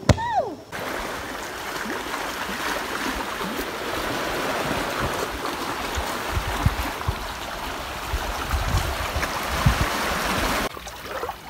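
Sea water washing and lapping at the shore: a steady rush of water noise with a few low thumps, cutting off just before the end. A brief sliding tone falls in pitch at the very start.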